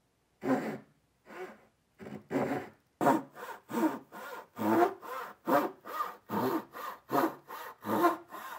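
Japanese dovetail pull saw cutting a small block of wood by hand, each stroke a separate rasp of the teeth through the kerf. It starts with a few light, spaced strokes, then settles into a steady rhythm of about two to three strokes a second from about three seconds in.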